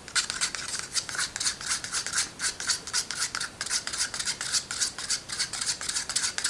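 Acrylic paint being stirred with distilled water in a cup: the stirrer scrapes around the inside of the cup in quick, even strokes, about three a second.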